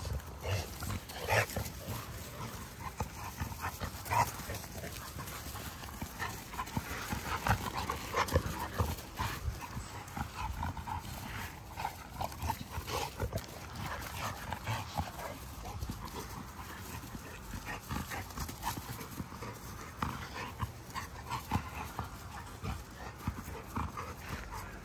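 American bully dogs playing together: irregular short scuffling sounds and dog noises, busiest about eight seconds in.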